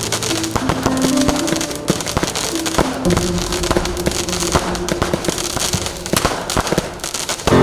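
New Year's fireworks: a dense run of irregular bangs and crackles from rockets and firecrackers going off.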